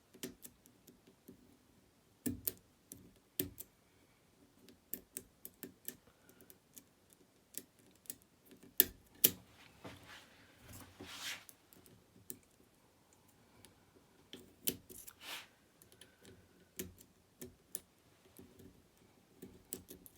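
Small metal tools clicking and scraping in a Fontaine seven-slider pump lock as its sliders are picked one after another: irregular light clicks, with a couple of brief scrapes about halfway through and again near two-thirds of the way.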